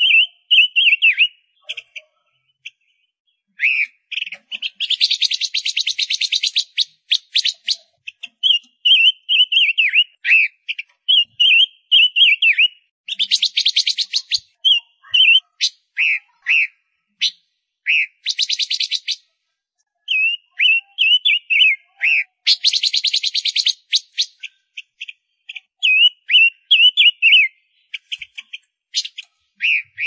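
Gouldian finch singing: strings of short chirping notes alternating with buzzy, rattling bursts of one to two seconds, with a few brief pauses.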